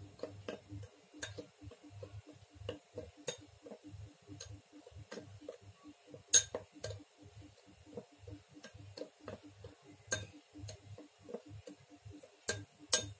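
A metal spoon stirring dry spice powder in a small glass bowl: light ticks and scrapes of the spoon against the glass, about three a second, with a few sharper clinks.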